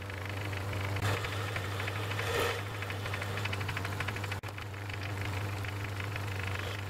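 Metal lathe running with a steady motor hum while a drill held in the tailstock is fed into the end of a spinning steel bar, the cutting adding a fine, rapid chatter.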